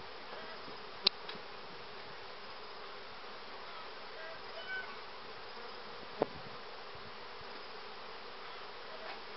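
Carniolan honeybees buzzing in a steady hum over a freshly opened hive. Two sharp clicks break it, about a second in and about six seconds in.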